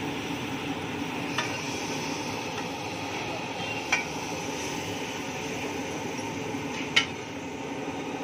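Shredded cabbage and vegetables sizzling on a large flat griddle as they are stirred with a metal spatula. There are three sharp clinks of the spatula striking the griddle, the last the loudest.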